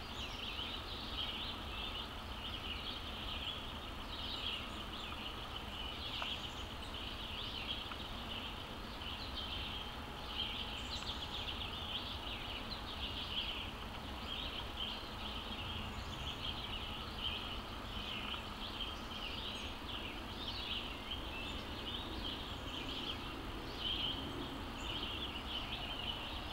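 A steady chorus of high, rapid chirping that goes on without a break, over a low steady background hum.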